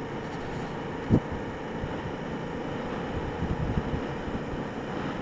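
Motorcycle riding along at a steady speed: wind rushing over the microphone over a steady engine hum, with one short knock about a second in.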